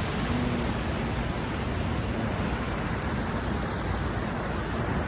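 Steady, even rushing outdoor noise with no distinct events, heaviest in the low end, like wind on a phone microphone over city ambience.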